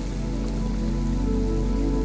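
Slow ambient music of low, steady held drones, over a soft, even rain-like patter.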